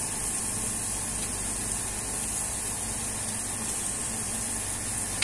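Two smashed beef burger patties sizzling on a hot flat-top griddle, a steady hiss as they are left to sear and crisp on the underside.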